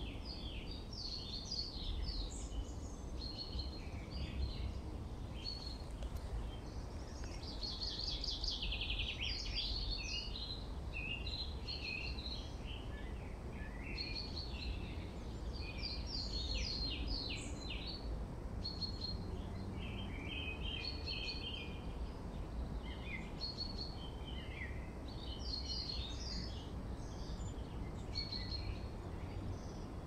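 Songbirds singing in a forest: several different chirping and trilling phrases overlapping one another without a break, over a steady low background rumble.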